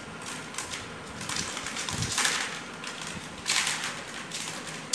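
Dried maize cobs being shelled by hand, kernels scraped off with a crackling rattle and falling into a plastic tub. It comes in irregular bursts, loudest about two and three and a half seconds in.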